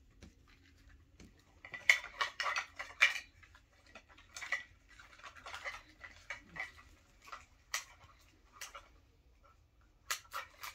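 Small plastic toy packaging handled and opened by hand: bunches of crisp crinkles and little plastic clicks, the busiest about two seconds in, then shorter bursts every second or so.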